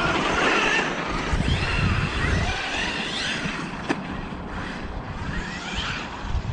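Electric motors of large RC trucks whining, rising and falling in pitch as the trucks speed up and slow down, over a low wind rumble on the microphone. A single sharp click about four seconds in.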